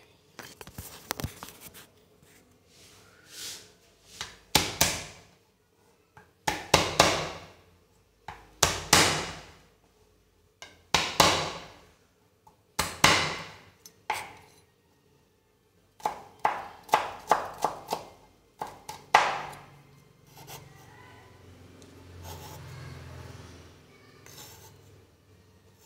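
Knife chopping on a cutting board: single hard strokes a second or two apart, with a quick run of strokes about two-thirds of the way in. Near the end there is a fainter, steady scraping.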